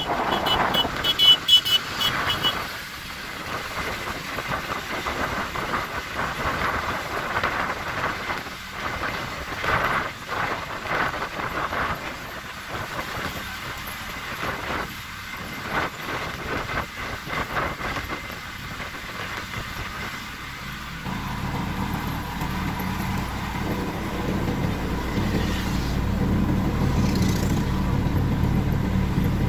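Riding in a vehicle along a highway: steady wind and road noise, with trucks going by. A brief high-pitched tone sounds near the start. About two-thirds of the way through, a steady low engine drone comes in and runs on.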